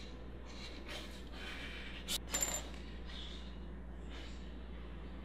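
Soft breathing over a low room hum. Just after two seconds in comes a sharp click and then a brief, light ringing clink, like a small metal object.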